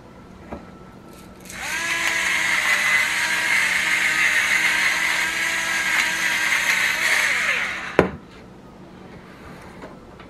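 Electric pepper grinder running: its small motor whirs steadily for about six seconds, rising in pitch as it spins up and falling as it stops, followed by a sharp knock.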